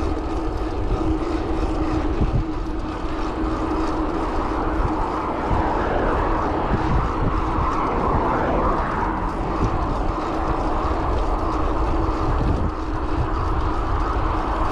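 Steady wind rush and rumble on a bike-mounted action camera's microphone while riding a road bicycle at speed, with a faint steady hum underneath.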